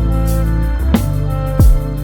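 Background music with held low notes and a deep drum beat hitting about twice.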